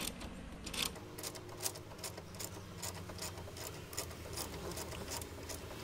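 Ratchet wrench clicking as a bolt is loosened, about two or three clicks a second, over a low steady hum.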